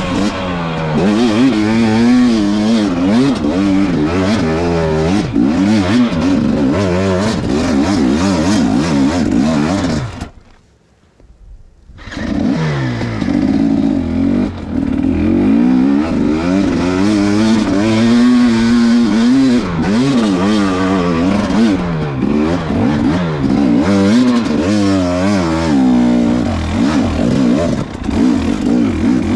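KTM dirt bike engine revving hard under load, its pitch rising and falling again and again with the throttle. The sound drops away for about two seconds partway through, then the revving picks up again.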